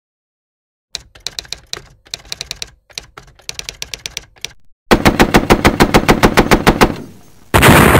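Bursts of typewriter key clicks, then a loud burst of fully automatic AK-47 fire at about ten shots a second for about two seconds. A loud explosion begins just before the end.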